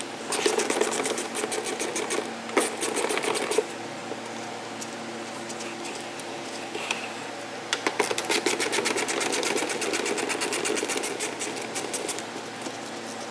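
Hand ratchet clicking rapidly as a socket is spun on the bumper's mounting bolts behind the wheel-arch liner, backing them out. It goes in two runs: about three seconds from just after the start, then about four seconds from around eight seconds in.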